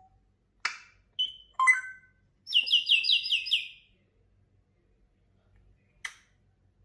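African grey parrot whistling and chirping. A sharp click comes about a second in, then short whistles, then a fast run of about eight high chirps lasting a little over a second, and another sharp click near the end.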